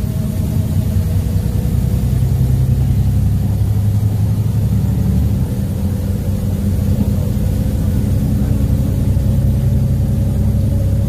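Cabin noise of a LiAZ 5292.22-01 city bus under way: the drone of its MAN E0836 LOH01 natural-gas engine and automatic gearbox, mixed with road noise. A faint whine rises slightly in pitch as the bus picks up speed.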